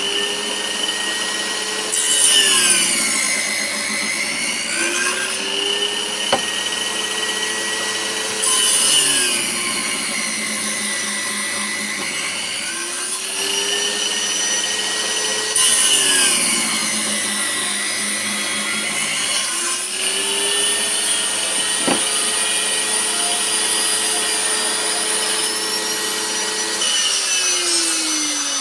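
Table saw running, its whine dropping in pitch and surging three times as the blade cuts tenons in hardwood pieces, then recovering between cuts. Two sharp knocks fall between the cuts.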